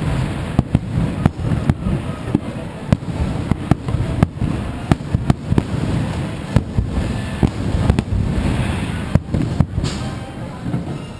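Fireworks display: aerial shells bursting in quick succession, many sharp bangs about two a second over a continuous low rumble of echoing explosions.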